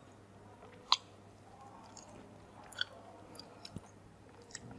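A person chewing and eating, faint, with a few sharp clicks: one about a second in and a couple more near the three-second mark.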